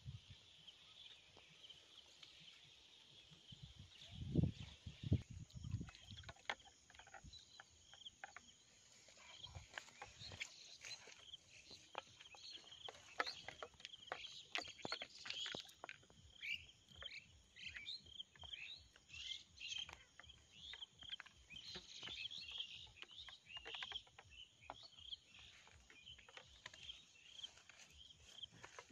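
A few heavy footsteps on grass about four to six seconds in, then a faint, steady chorus of short, high chirps, several a second, from small animals calling.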